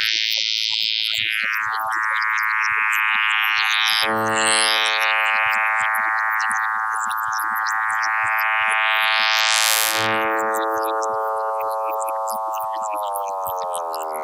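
Logic Test Oscillator tone processed by the Synaptic Resonance neural-simulation plugin: a steady-pitched synth tone rich in overtones, whose brightness sweeps up and down. Near the end the pitch begins to slide downward.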